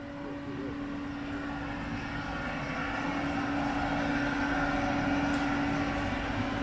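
A steady mechanical hum with one low held tone, slowly growing louder.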